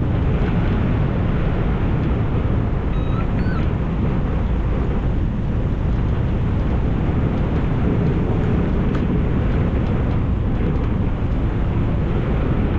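Steady rush of wind buffeting the microphone in flight on a hang glider, with a few faint short high chirps about three seconds in.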